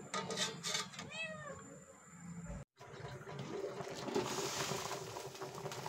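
A domestic cat meows once, about a second in: a single call that rises and falls in pitch. After a break, a pot of broth on the stove simmers with a soft, steady hiss.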